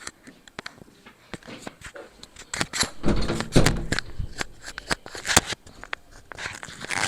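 Rustling, scraping and light clicks of packaging and a laptop being handled, with a brief low murmur about three seconds in.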